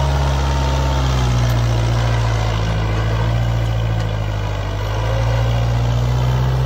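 Kubota tractor's diesel engine running at a steady speed under load, pulling a rotavator with a disc harrow behind it through tilled soil.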